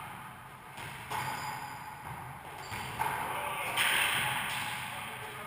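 Wallyball rally in an echoing racquetball court: the ball is struck sharply about a second in and again about three seconds in, each hit ringing off the walls. A louder, longer noise comes just before four seconds in.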